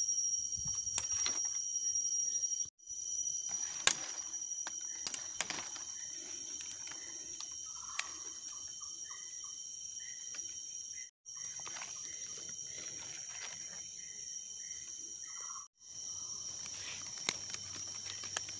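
Steady high-pitched insect chorus, with scattered light clicks and knocks. It cuts out abruptly three times for a moment.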